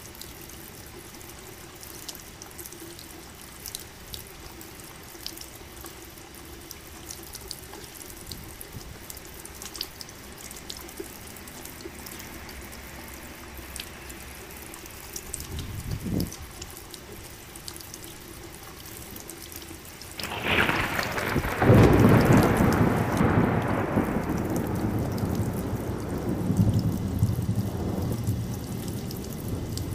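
Steady rain falling, with scattered drips. About halfway there is a brief low rumble of thunder; then, about two-thirds in, a loud thunderclap breaks out and rolls on, fading slowly.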